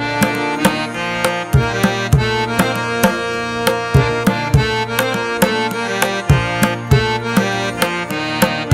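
Background music: a rhythm of quick drum strokes under a sustained melody.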